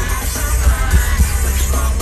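Live K-pop concert music over an arena sound system, heard from the crowd, with a heavy pulsing bass beat.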